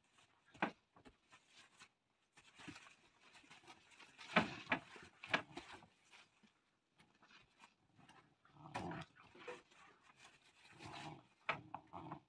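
Puppies scuffling as they play tug-of-war over a plush toy, in short irregular bursts of noise, loudest about four to five and a half seconds in and again around nine and eleven seconds.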